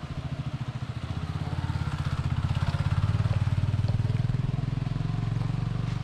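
A small motorcycle engine running with a steady low, rapid pulse, growing louder toward the middle as it passes close.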